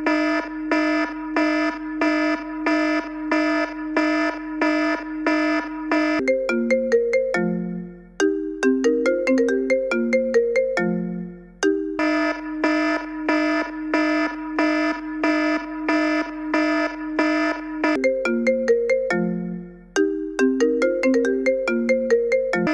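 Electronic alarm or ringtone sound: a steady pitched beep repeating about three times a second, alternating every six seconds or so with a short synthesized melody of quick stepping notes.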